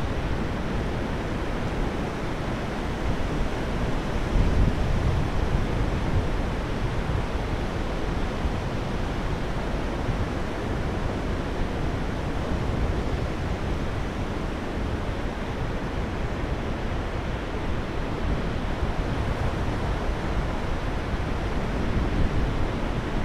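Sea surf breaking and washing up a flat sandy beach, heard as a steady rush of waves, with wind on the microphone.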